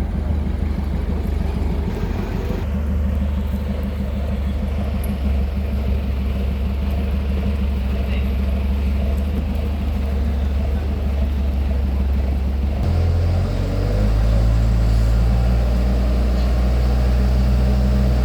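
Engines of heavy road-construction machinery running with a steady low drone. The sound changes abruptly about 3 s in and again about 13 s in, where it gets a little louder.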